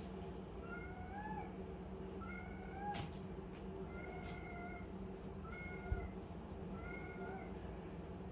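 Kitten mewing over and over, short slightly rising mews about every second and a half. A sharp low thump about six seconds in.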